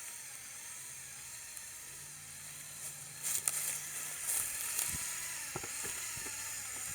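Electric drive motor and plastic gear train of a remote-controlled LEGO Technic 4x4 whirring steadily as it drives in third gear. A few sharp clicks and crackles come about halfway through.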